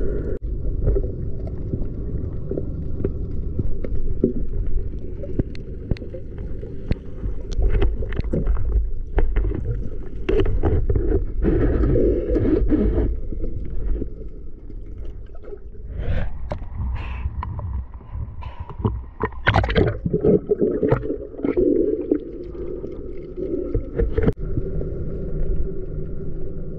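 Underwater sound picked up by a camera in a waterproof housing: a steady low rumble of moving water with many scattered clicks and crackles, and louder gurgling, rushing stretches about ten to thirteen and sixteen to twenty-one seconds in.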